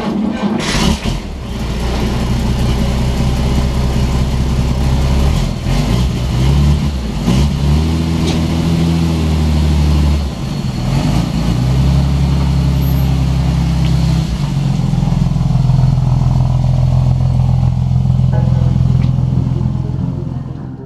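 1946 Dodge truck's flathead six-cylinder engine running and being revved as the truck is driven out, its pitch rising and falling with the throttle and changing sharply about ten seconds in and again about fourteen seconds in.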